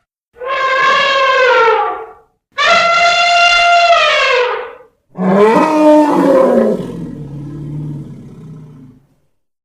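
African bush elephant trumpeting: three separate calls of about two seconds each, the pitch falling at the end of each. The third call is rougher and trails off into a long, low rumbling tail.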